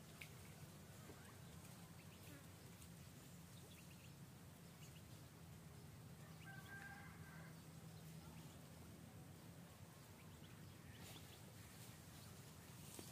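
Near silence: a faint steady low hum, light rustling of leaves and stems as hands work through the vegetation, and a short faint chirp about seven seconds in.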